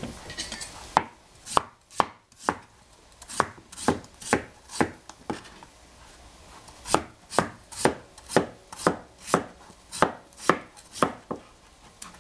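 Knife chopping on a cutting board: sharp, even strokes at about two a second, pausing briefly about halfway through, then carrying on.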